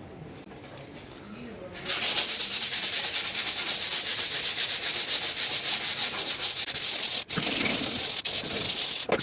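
Abrasive sanding of rusted metal: a loud scratchy hiss of rapid, even rubbing strokes that begins about two seconds in, with a couple of brief breaks near the end.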